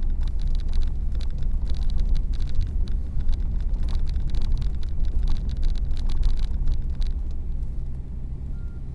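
Car heard from inside the cabin while driving on a snow-covered road: a steady low engine and road rumble, with scattered faint clicks above it.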